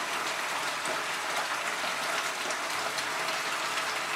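Thick yogurt-and-poppy-seed eggplant curry boiling in a pan: a steady crackle of many small bubbles popping and sizzling.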